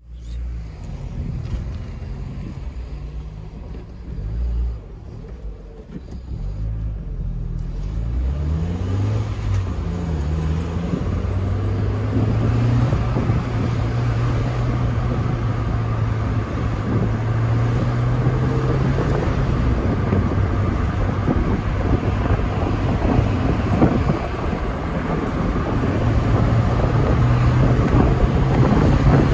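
Small four-cylinder petrol roadster engine heard from the open cockpit with the top down. It pulls at low revs with the pitch shifting in steps, climbs about 8 seconds in, then holds a steady cruising note while wind and tyre noise build as speed rises.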